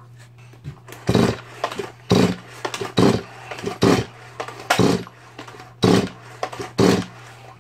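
Stihl MS180C chainsaw's two-stroke engine in short, loud bursts about once a second, seven times, over a steady low hum.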